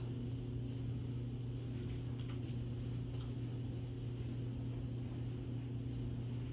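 Steady low hum of a running machine or appliance, with a few faint light ticks about two and three seconds in.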